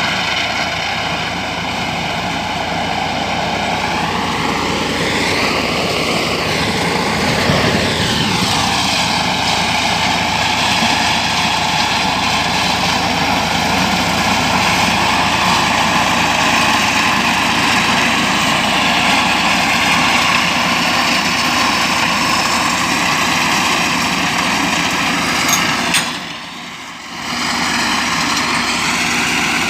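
Small engine of a motorised hay mower running steadily close by, with its pitch rising and then falling a few seconds in. Around 26 s there is a click and the sound drops away sharply for about a second before the engine sound returns.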